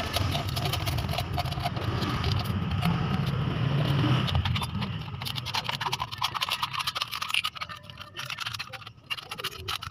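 Scissors cutting through a thin aluminium drink can: many short snips and scraping crinkles of the metal, with a low rumble in the first few seconds.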